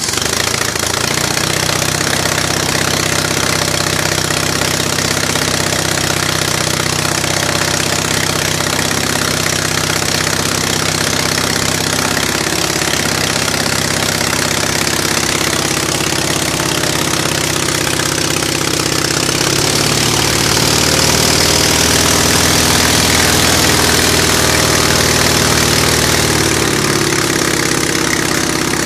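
Hummel Engines 45 hp half-VW, a two-cylinder air-cooled flat engine, running steadily on the ground and turning the propeller. Its pitch rises a little past the middle and settles back near the end.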